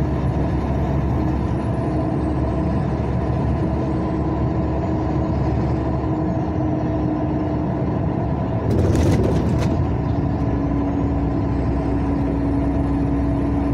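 Semi-trailer truck's diesel engine running steadily on the road. About two-thirds of the way through comes a short burst of air hiss, typical of the truck's air brakes.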